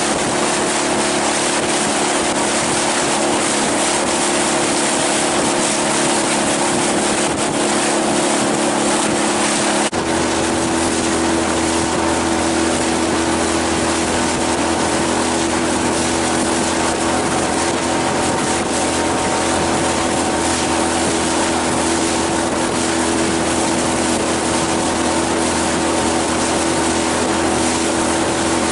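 Outboard motor running steadily as the boat travels under way, over heavy wind and water rush. About ten seconds in the engine note shifts abruptly to a different steady pitch.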